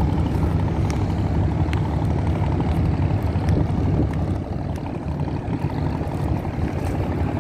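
A boat's engine running steadily with a low drone.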